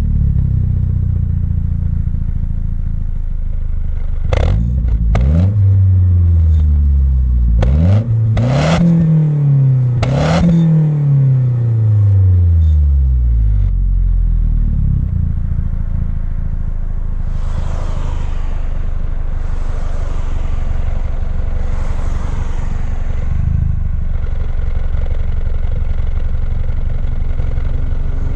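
Mazda 6 MPS's turbocharged 2.3-litre four-cylinder engine idling, then revved several times, its pitch rising and falling with each blip, with a few sharp snaps as revs begin. It settles back to idle, with three soft hissing swells near the middle.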